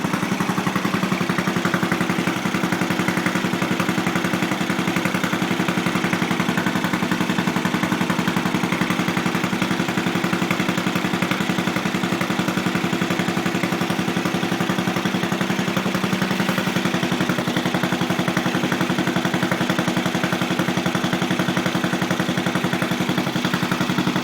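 Craftsman LT4000 lawn tractor engine running steadily with a fast, even beat. The owner says the engine needs a carburettor kit.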